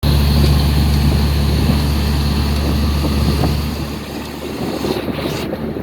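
Engine of a moving vehicle running steadily with a deep low hum, with wind rushing over the microphone. The low hum drops away about four seconds in.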